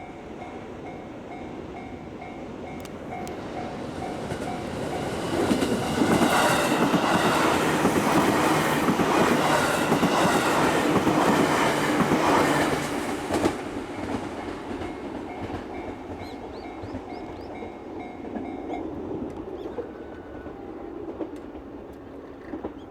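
Japanese railway level-crossing alarm ringing in an even, repeating pulse while a JR Ryomo Line train passes over the crossing: from about six seconds in the train's wheels clatter loudly for about eight seconds, then fade. The alarm stops about nineteen seconds in, the sign that the train has cleared and the crossing is opening.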